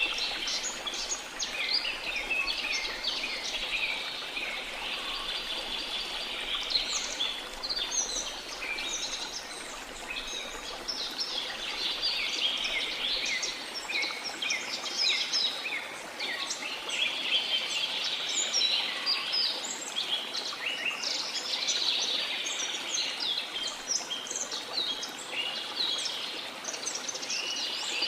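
Rainforest ambience: many birds chirping and calling at once over a steady rush of flowing water.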